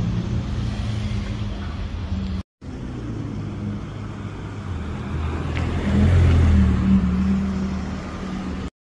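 Car engines in city traffic. After a brief break, a car's engine builds up and accelerates away, loudest about six to seven seconds in, then cuts off suddenly.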